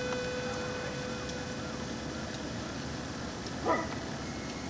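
Steady outdoor background noise with a single short animal call, the loudest moment, about three and a half seconds in.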